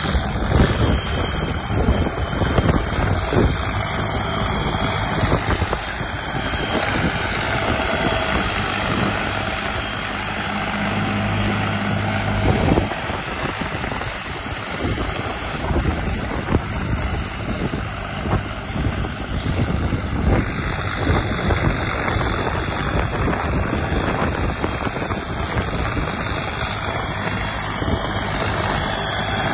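John Deere 5210 tractor's three-cylinder diesel engine working under steady load as it pulls a 32-disc hydraulic harrow through stubble, with wind buffeting the microphone. The engine hum is clearest about ten to twelve seconds in.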